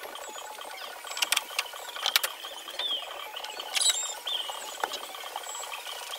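A few sharp wooden knocks and clacks as the timber framing of a wooden boat's cabin is handled. Under them runs a steady, fast ticking background, with two short chirps near the middle.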